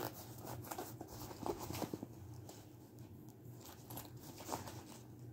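Zipper of a fabric zip-around cosmetic pouch being drawn open, with faint rustling and small clicks of the pouch being handled.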